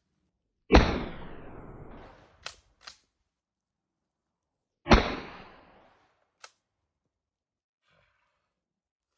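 Two 12-gauge shotgun shots from a Stevens 320 pump-action firing double-aught buckshot, about four seconds apart, each with a short echoing tail. Between them come two sharp clacks of the pump being racked, and one more click follows the second shot.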